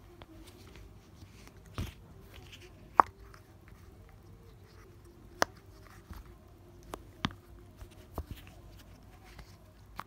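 Fidget toys being handled: about six short, sharp clicks or pops at irregular intervals, the loudest about three seconds in.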